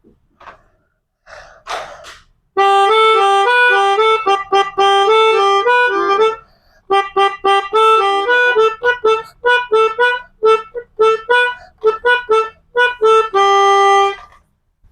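Melodica (pianika) playing the telolet bus-horn tune: runs of notes stepping back and forth between a few pitches, a short break, then quick short detached notes, ending on one long held note. A few faint short sounds come before the playing starts.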